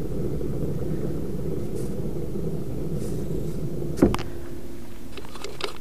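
A steady low rumble, with one sharp clunk about four seconds in as the jacked-up boat trailer wheel is rocked on its badly worn, super loose wheel bearing, and a few fainter clicks near the end.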